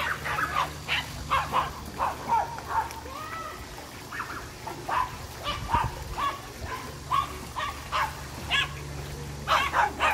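A small dog yipping and whining in many short, quick calls, some bending up and down in pitch like whimpers, over a steady low hum.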